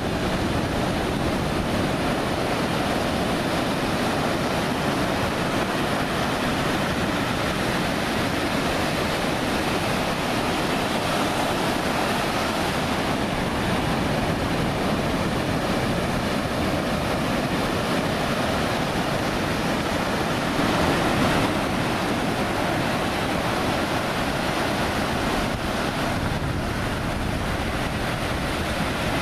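Ocean surf breaking in a continuous wash, with wind noise on the microphone; it swells briefly a little over two-thirds of the way through.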